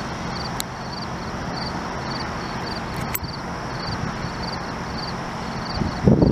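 Wind rushing steadily over the microphone, with an insect chirping in short high pulses about twice a second; a stronger gust buffets the microphone near the end.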